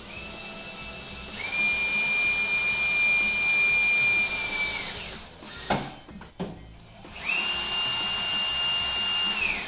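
Drill driving the microwave's mounting screws: a steady motor whine that gets louder about a second in and runs to about five seconds, a couple of short knocks, then a second shorter run that stops near the end.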